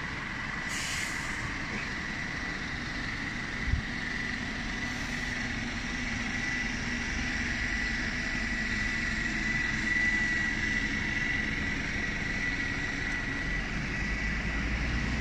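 Steady road-traffic noise as a double-decker bus moves off along the street, with a thin steady high whine throughout. There is a short hiss about a second in and a single thump a little under four seconds in. A deeper rumble builds near the end.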